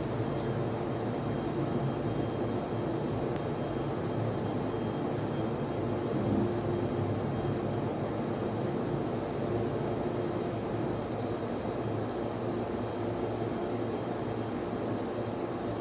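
Steady whir of server and network switch cooling fans, with a faint high tone running through it and a couple of faint ticks in the first few seconds.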